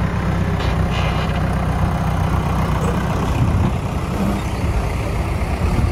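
A small motor running steadily, a low hum with a hiss over it, as mud is washed off a toy bulldozer.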